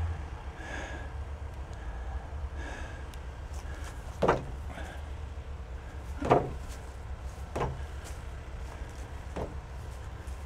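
Someone kicking a weathered wooden picnic table with a metal frame to stir up any wasps or hornets nesting in it: about four separate thuds, the first two loudest.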